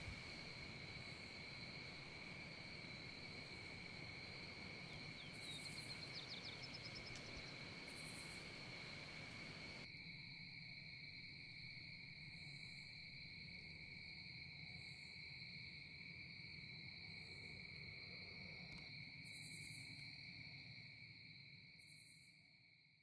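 Faint, steady insect buzzing in a Georgia forest in fall, heard as one unbroken high drone, which the hiker could not identify (cicadas, crickets or some other insect). Short, higher-pitched pulses come every couple of seconds, and the sound fades out near the end.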